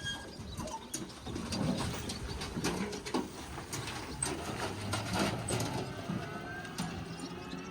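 Pigs grunting in short low calls every second or so, with scattered clicks and knocks.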